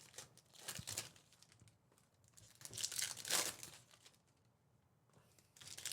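Trading-card pack wrappers crinkling and tearing as packs are ripped open and handled. The rustling comes in three bursts: the first about half a second in, the loudest about three seconds in, and the last starting near the end after a short quiet pause.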